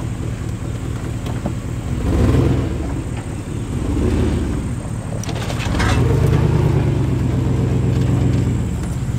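Old four-wheel-drive Chevy pickup's engine pulling under load up a steep dirt-and-grass grade in two-wheel drive. The revs rise in surges about two seconds in, again around four seconds, and longest from about six to eight and a half seconds. A short clack comes just before the last surge.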